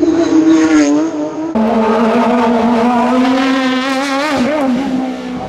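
A racing car's engine running hard at high revs during a hillclimb run. The sound changes abruptly about a second and a half in, then holds a fairly steady pitch with a brief dip about four seconds in.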